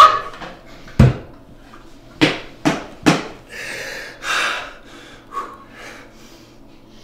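Four sharp knocks on a countertop over about two seconds, then a man's breathy panting as he gets his breath back after laughing.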